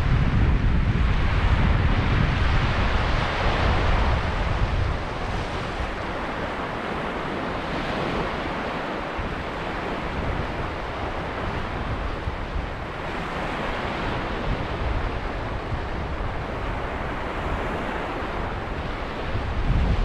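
Sea waves breaking and washing over a sand and pebble beach: a continuous surf wash that swells every few seconds. Wind rumbles on the microphone for the first five seconds or so and again at the very end.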